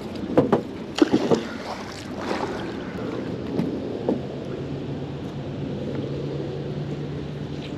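A few sharp clunks in the boat in the first second or so, then a magnet-fishing rope being hauled in hand over hand over the side of the boat, with water lapping and a faint low steady hum from about halfway through.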